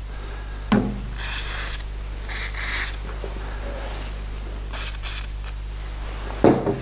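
G96 aerosol gun oil sprayed through a straw nozzle in three short hissing bursts, with a thump near the end.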